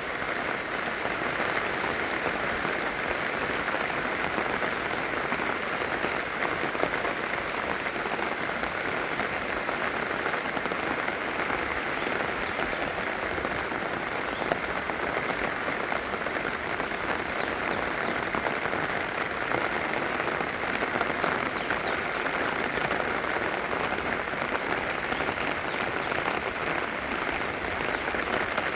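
Steady heavy rain falling in a dense, even patter, with a few faint, short high chirps now and then in its middle part.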